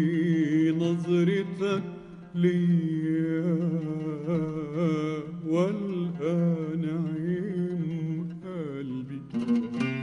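A man singing a slow, heavily ornamented Arabic vocal line in the classical tarab style, his voice bending and wavering around each note over a steady low accompaniment. The sound dips briefly about two seconds in, and a run of oud plucks comes in near the end.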